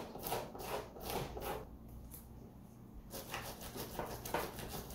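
Fingers rubbing dried masking fluid off an acrylic painting on canvas: quick, repeated scuffing strokes, about three a second, with a short pause in the middle.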